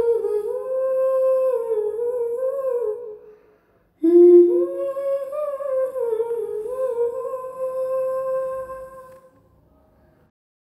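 A woman humming a gentle tune, in two phrases with a short break about four seconds in; the humming fades out near the end.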